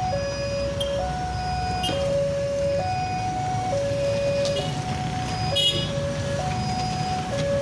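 Railway level-crossing warning buzzer (ACK buzzer) sounding a two-tone alarm, switching between a lower and a higher note about every second, the signal that a train is approaching and the crossing barrier is down. Road traffic rumbles underneath as cars and motorcycles pass over the crossing.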